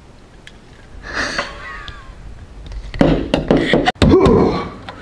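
A quick run of hard knocks and clattering, the loudest part, with short voice-like exclamations before and after it.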